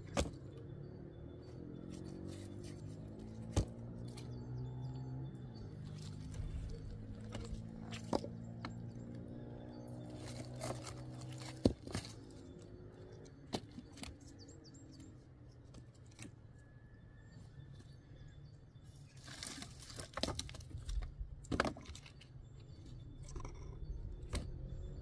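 Dry branches being gathered and broken by hand: several sharp single cracks of snapping wood, and a longer spell of rustling brushwood a little after the middle. A low steady hum runs underneath.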